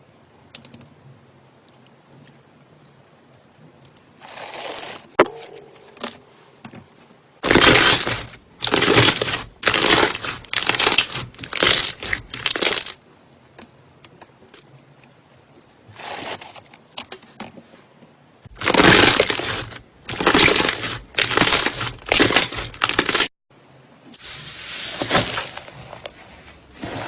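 Slime being squeezed and pressed by hand, crackling in a run of short noisy bursts about once a second, with pauses between the runs.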